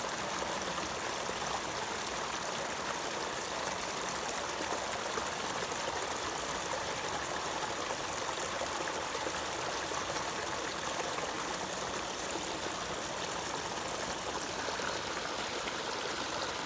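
Flowing water running steadily: a stream trickling and splashing.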